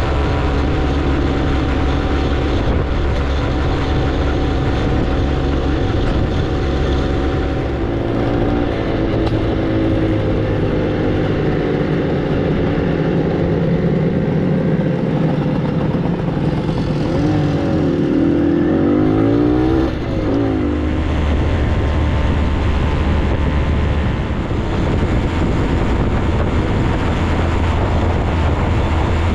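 Vintage Hodaka motorcycle's single-cylinder two-stroke engine running under way, heard from on the bike. Its pitch sweeps up and down through the middle of the ride, with rising and falling revs.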